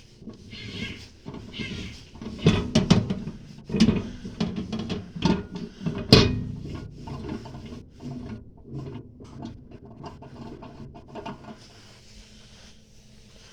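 Irregular knocks, clicks and clatters of objects being handled, loudest and densest in the first six seconds, then thinning out and fading near the end.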